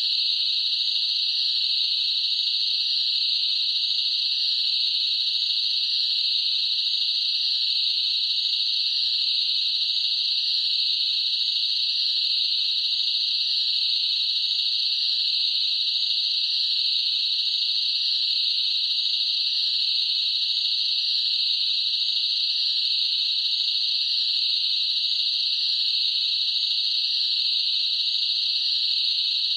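Crickets chirping in a dense, unbroken, high-pitched trill that stays steady in loudness throughout.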